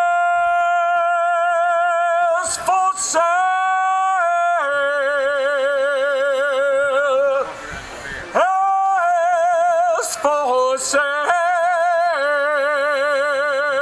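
A man singing alone and unaccompanied in long, loud held notes. The notes step up and down in pitch and carry a wide vibrato. Quick breaths break them about two and a half, eight and ten seconds in.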